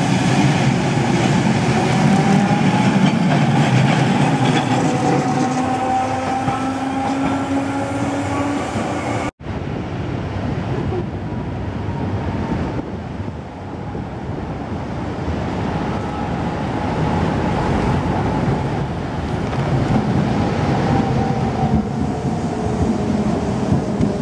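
Electric streetcars on street track: a tram running with a motor whine that glides in pitch over the rumble of its wheels on the rails. After a sudden cut about nine seconds in, another tram pulls into a stop near the end, its whine falling in pitch as it slows.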